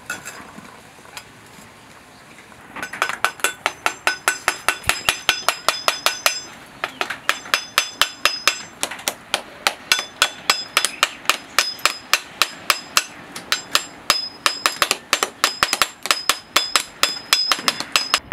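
Metal hammer tapping on the hard, charred shell of a fire-roasted stuffed coconut to crack it open. After a few separate knocks, fast light strikes set in about three seconds in, about four a second with a short ring on each, pausing briefly now and then.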